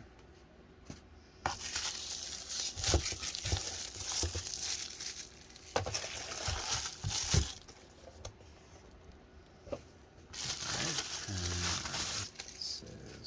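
Plastic packaging crinkling and rustling as the parts of a soldering helping-hands kit are unwrapped, in two long spells, with a few sharp knocks of parts being handled.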